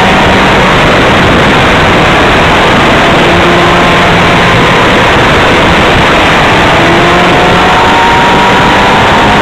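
Motorcycle ride heard through heavy, constant wind rush on the camera's microphone, which nearly drowns the motorcycle engine; the engine note is faintly heard, rising a little near the end.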